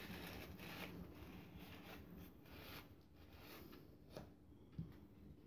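Faint rustling and crinkling of crepe paper being handled and wrapped by hand, with two small clicks near the end.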